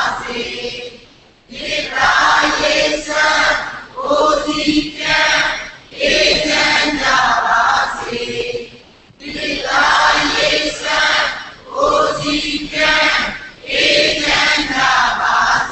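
Buddhist chanting by several voices together, in phrases of about two seconds with short breaks between them.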